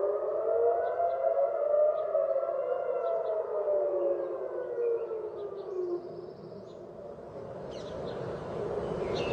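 Civil-defence air-raid sirens wailing, warning of incoming Iranian missiles. Several sirens overlap out of step, their pitch slowly rising and falling. They fade out about six seconds in, and a rising rush of outdoor noise replaces them.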